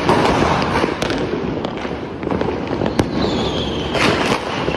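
Firecrackers going off: a steady rushing hiss, broken by sharp bangs about a second in, at three seconds, and twice near the end. A faint falling whistle sounds in the last second or so.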